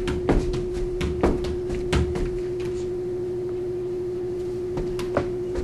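A soccer ball kicked up off the foot several times in quick juggling touches over the first couple of seconds, then caught and held still on the foot, with a couple of light taps near the end. A steady hum runs underneath throughout.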